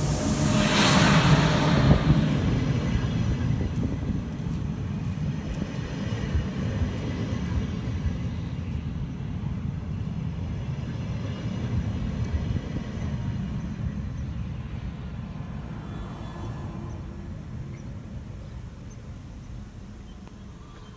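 NS class 1700 electric locomotive passing close by, loudest in the first two seconds, followed by its DD-AR double-deck coaches rolling past with a steady low rumble that slowly fades as the train moves away.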